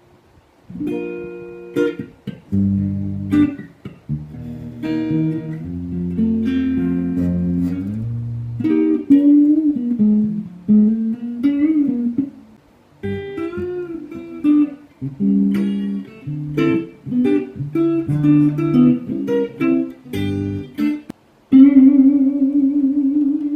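Handmade 'Gazelle' electric guitar played solo: plucked chords over low bass notes, then single-note melody lines, ending on a long held note with vibrato.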